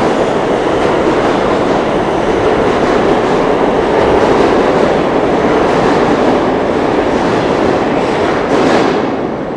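New York City subway train running along the platform, a loud steady rumble of wheels on rails that fades near the end.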